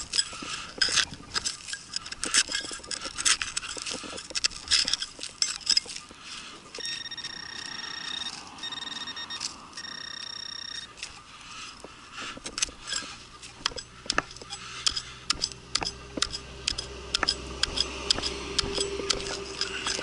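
Hand digger scraping and knocking against hard, rocky ground, in many short sharp strikes; the ground is too hard to dig, calling for a pick. About seven seconds in, a Garrett AT Pro metal detector sounds a steady high target tone three times over about four seconds.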